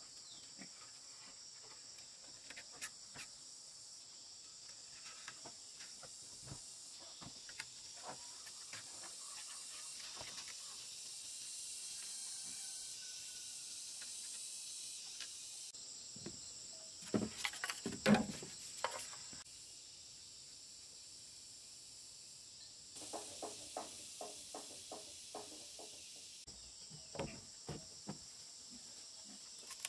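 Insects chirring steadily in the background, with scattered knocks and clicks of bamboo poles being handled and tied against a log roof frame. A cluster of louder knocks comes a little past halfway, followed a few seconds later by a run of lighter clicks.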